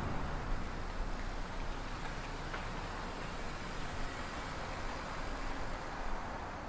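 A small hatchback car driving up along the street, its engine a low steady rumble under an even hiss of street noise.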